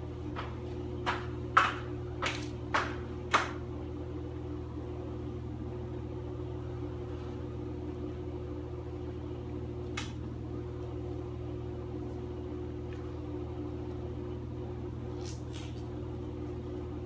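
A steady machine hum in a small room, with a quick run of about five sharp knocks in the first few seconds, one more about ten seconds in and two close together near the end.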